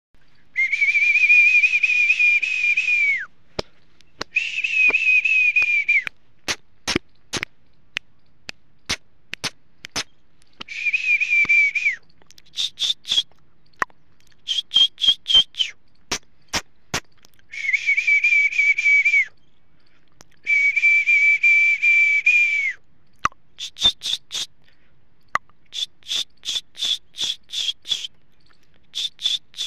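High-pitched whistling: long held notes of two to three seconds with a slight waver, five in all, separated by quick runs of short, higher chirps and many sharp clicks.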